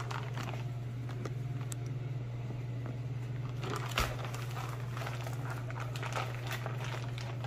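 Plastic bag and pouch of two-part expanding post foam crinkling and rustling as they are handled and pressed down onto plastic sheeting, with a sharper crackle about four seconds in. A steady low hum runs underneath.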